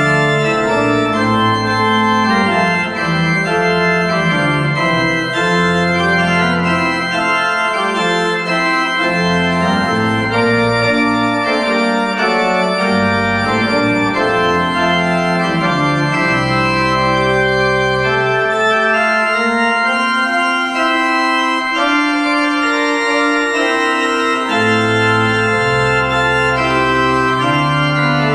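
Church pipe organ playing a full-voiced piece in sustained, changing chords, with low pedal bass notes that drop out for a few seconds now and then.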